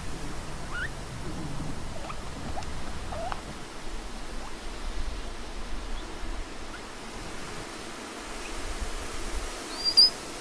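Patagonian mara giving a few short rising squeaks over a steady hiss, then one higher, louder squeak near the end.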